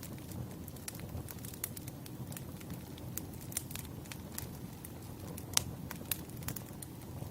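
Wood fire crackling: irregular sharp pops and snaps of burning logs over a low steady rumble, with the loudest pop about two-thirds of the way through.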